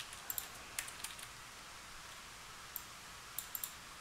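Faint, scattered clicks of a computer keyboard and mouse, a group in the first second and another near the end, over a low steady hiss.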